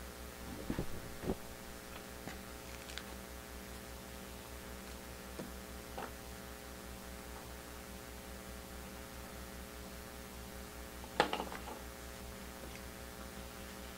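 Steady electrical mains hum, broken by a few short clicks and rustles of trading cards and packaging being handled. The loudest cluster of clicks comes about eleven seconds in.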